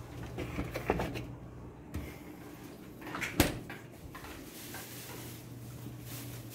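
Refrigerator door and its shelf contents being handled, with a few light knocks and then one sharp thump about three and a half seconds in as the door is shut.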